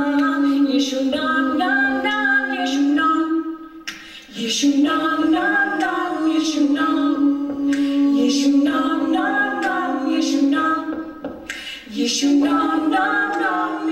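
Mixed group of male and female voices singing a cappella together, with no instruments. The singing pauses briefly about four seconds in and again near the end.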